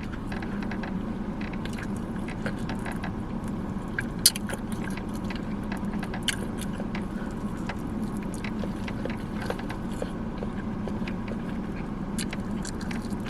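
Steady hum inside a car, with scattered small clicks and smacks of someone biting and chewing chicken wings close to the microphone; one sharper click about four seconds in.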